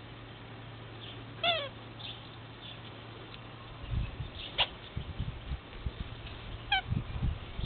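Komondor puppy whimpering: a short high, falling whine about a second and a half in and a briefer one near the end. Low thumps and a sharp click come in the second half, over a faint steady low hum.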